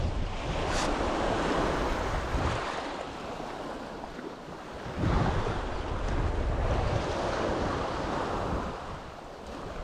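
Sea waves washing up a beach, the wash swelling twice about five seconds apart, with wind rumbling on the microphone.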